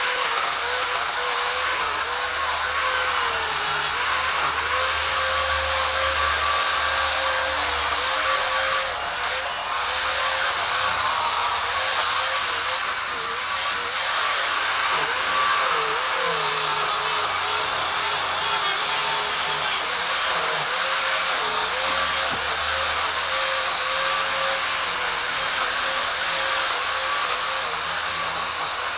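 Pole saw motor running at high speed with a steady whine, its pitch dipping briefly again and again as the chain bogs down while cutting branches.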